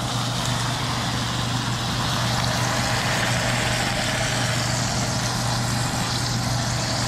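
Chunks of meat and green salsa sizzling steadily in hot oil in a frying pan, with a steady low hum underneath.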